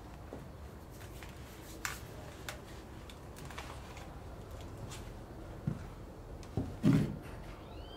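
Small clicks and rustles of objects and paper being handled at a worktable, with a few dull thumps near the end, the loudest about seven seconds in. A domestic cat gives a short meow right at the end.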